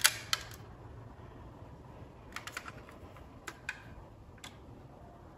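Hands handling a die-cast metal model car: a loud cluster of sharp clicks and knocks at the start, then a few scattered lighter clicks as the model is turned in the hands.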